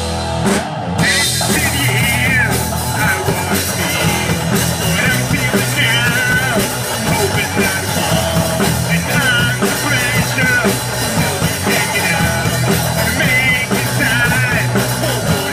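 A rock band playing punk rock live: distorted electric guitar, bass guitar and a drum kit, with the bassist singing into the microphone. The instruments drop out briefly about a second in, then the full band comes back in.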